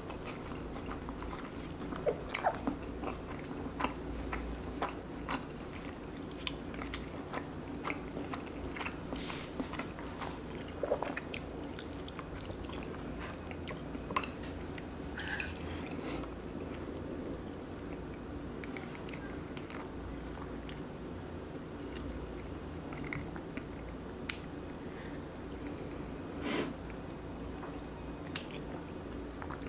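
Close-miked mouth sounds of someone chewing and biting braised pork-belly kimchi stew with rice. Small wet clicks are scattered throughout, with a few sharper ticks.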